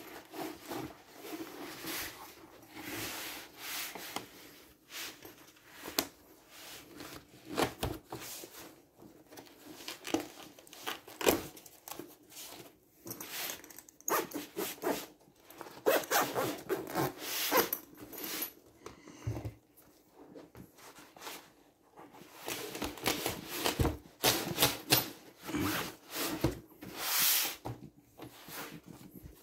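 Nylon laptop bags being handled: zippers run in short pulls, fabric rubs and rustles, with light bumps and knocks at irregular intervals.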